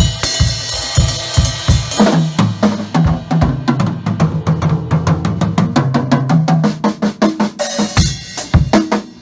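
Acoustic drum kit solo. Cymbals ring over bass drum hits, then about two seconds in a rapid run of low, pitched drum strokes moves across several pitches for several seconds. Cymbal crashes and bass drum hits come back near the end.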